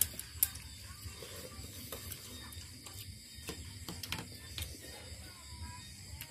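Light, scattered clicks and clinks of eating utensils against bowls during a meal of congee, a few sharp taps spread irregularly over a quiet background.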